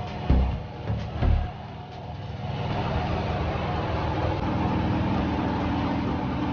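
A few dull low thumps, then a steady motor hum that sets in about two and a half seconds in and holds an even pitch.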